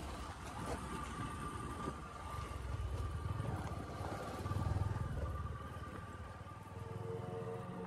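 Motorcycle engine running while riding, with a low pulsing rumble that swells louder a couple of times in the middle. Music fades in near the end.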